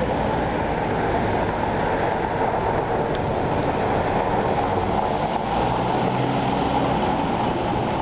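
Steady rushing street ambience at night, with a faint low engine-like hum joining about two-thirds of the way in.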